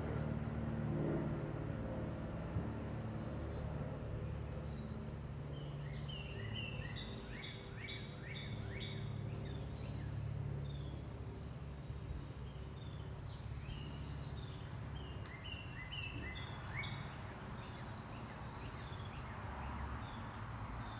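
Outdoor background: birds chirping in quick runs of short, repeated notes through the middle stretch, over a steady low mechanical hum.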